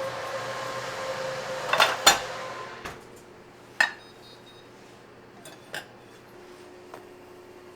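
Metal baking tins clinking and clanking as they are handled, several separate knocks, the loudest about two seconds in, over a steady hiss that stops after about two and a half seconds.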